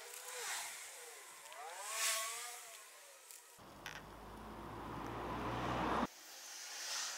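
Vehicles passing, their noise swelling and fading every second or two. In the middle a low rumble of wind or handling on the microphone builds for about two seconds and cuts off abruptly.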